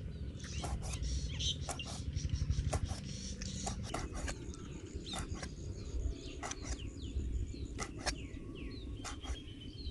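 Large kitchen knife chopping pieces of pig intestine against a cutting board: sharp knocks, irregular and often in quick pairs, about a dozen of them. Birds chirp faintly behind.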